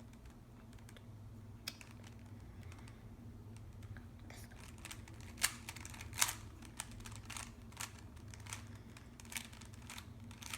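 Plastic Rubik's Cube being turned by hand: a string of irregular clicks as the layers snap round, two louder ones about five and a half and six seconds in. A faint steady hum lies underneath.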